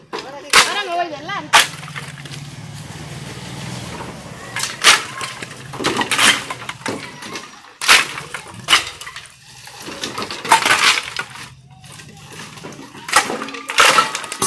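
Dry firewood sticks tossed down from a truck bed, landing on a pile with sharp wooden clatters at irregular intervals, about ten in all.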